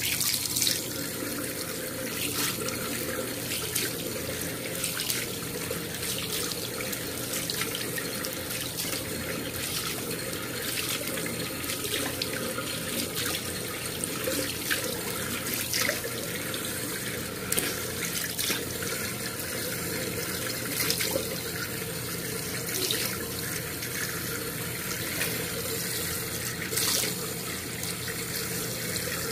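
Water running from a tap into a sink, with irregular splashes as hands scoop water onto the face to rinse off foaming facial cleanser.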